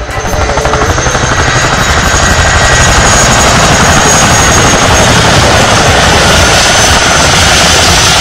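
Radio-controlled Mercedes model car driving, its motor and gears running at a loud, steady whir with a fast flutter, heard close up from a camera riding on the car.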